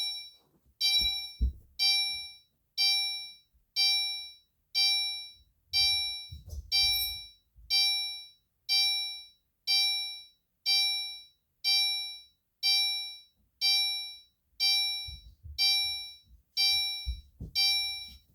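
Gentex Commander 3 fire alarm horn strobe sounding in alarm after the pull station is activated, set to a chime tone: a ding about once a second, each dying away, repeating steadily. A few dull knocks are heard alongside.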